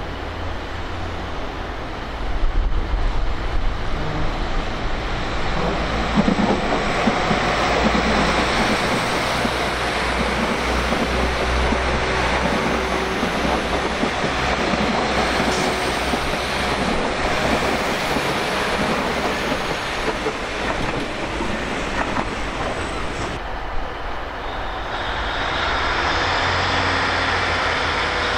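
A train running through the station, a steady rumble of the train and its wheels on the rails. It grows louder about two seconds in and changes in character about 24 seconds in.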